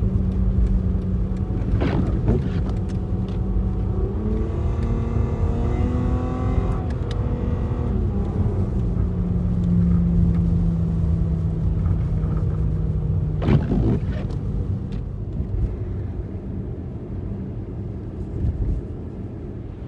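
Car driving on the highway, heard from inside: steady engine drone and road rumble whose pitch shifts a little, with two brief thumps, one about 2 seconds in and one about two-thirds of the way through.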